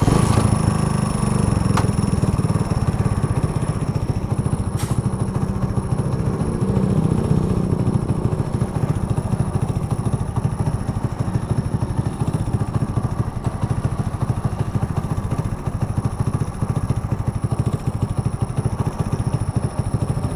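Hero Honda Splendor's 97.2 cc single-cylinder four-stroke engine starting up and running steadily at idle. It has a freshly rebuilt top end: new camshaft, rocker arms, rollers and timing chain.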